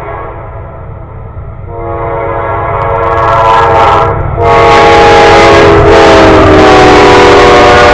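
Locomotive horn of an intermodal freight train blowing a long sustained blast. It swells about two seconds in and grows very loud as the train approaches. Near the end its pitch sags slightly as the locomotive draws level, over the low rumble of the train.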